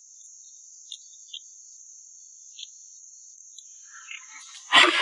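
Quiet eating at a table: a few faint clicks of chopsticks and bowls over a steady high-pitched background trill, then a loud breathy rush near the end.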